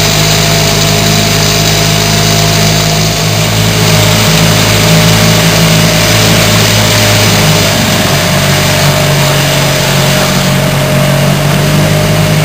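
Dinghy outboard motor running steadily under way, heard from aboard. Its pitch shifts slightly about eight seconds in.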